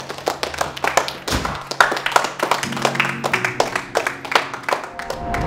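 A small group of people clapping irregularly over background music.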